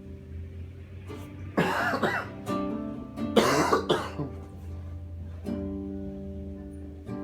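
An acoustic guitar holds a ringing chord over a low hum. It is broken twice by loud voice sounds, about one and a half and three and a half seconds in.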